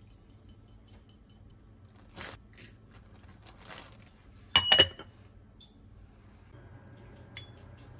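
Light ticking of a small metal whisk in a ceramic pot of beaten egg, a few soft rustling scrapes, then a quick run of sharp ringing clinks of metal and ceramic against the pot about halfway through. A low steady hum comes in near the end.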